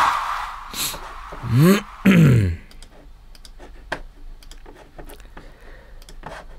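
The song's music ends just after the start. About two seconds in, a man's voice slides up in pitch and then back down in two quick sweeps. A run of light, irregular clicks like typing on a keyboard follows.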